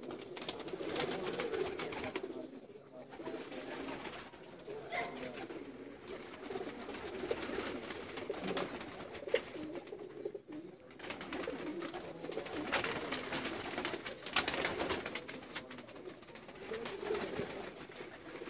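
Domestic pigeons cooing continuously in a loft, several birds at once, with a few short clicks mixed in.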